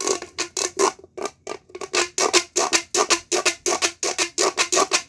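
Mini pop tube, a corrugated plastic fidget tube, being rapidly stretched and squashed: a fast run of loud ringing pops, about five a second.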